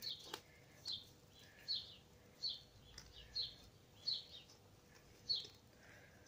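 A small bird calling over and over, one short high chirp about every three-quarters of a second, with a single faint click just after the start.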